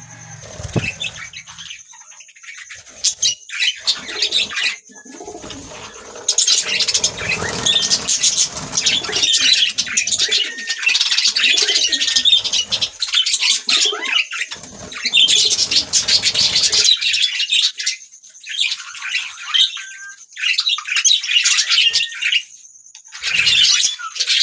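Budgerigars chirping and warbling in a dense, continuous chatter, with a couple of brief lulls near the end.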